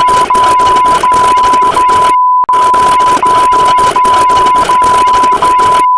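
A steady, censor-style electronic beep tone with tiny breaks about every three-quarters of a second, over loud, harsh distorted noise. The noise cuts out briefly about two seconds in while the beep carries on.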